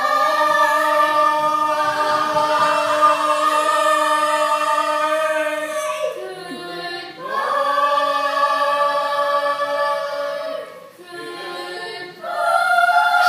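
A small group of voices singing a cappella in long held notes. There are three sustained chords: one of about six seconds, a shorter one, and a third beginning near the end.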